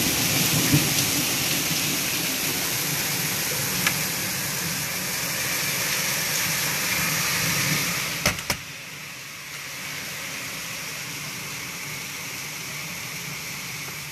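Heavy rain pouring down in a thunderstorm, a steady hiss. About eight seconds in there are a couple of knocks, and the rain turns quieter and duller, heard from behind a rain-spattered window pane.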